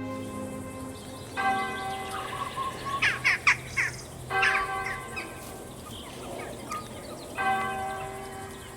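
A single bell tolling slowly, struck three times about three seconds apart, each stroke ringing on and fading. Small birds chirp between the strokes.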